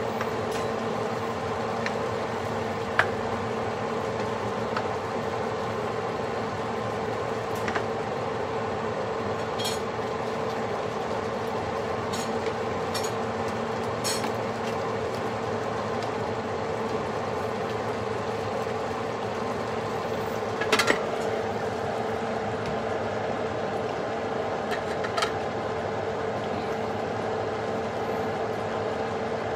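A steady mechanical hum with a held mid-pitched tone, broken by several short, light clinks, typical of cookware or utensils being handled.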